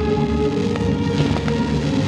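Music playing over a fireworks display, with a steady crackling hiss from the fireworks underneath and a few faint pops.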